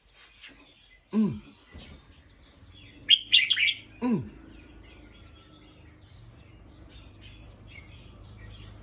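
Bulbul chirping, with a burst of quick, sharp notes about three seconds in and fainter scattered chirps around it. Twice, about a second in and again about four seconds in, a lower call sweeps steeply down in pitch.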